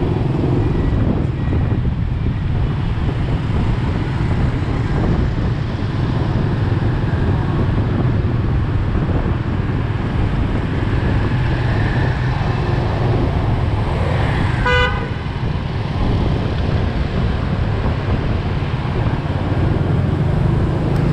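Steady engine and road noise heard from pillion on a motor scooter riding through city traffic. About fifteen seconds in, a vehicle horn gives one short beep.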